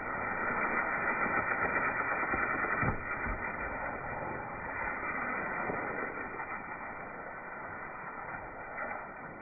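Non-exploding fountain firework spraying sparks with a steady hiss, loudest over the first three seconds and then slowly fading, with two brief low thumps about three seconds in.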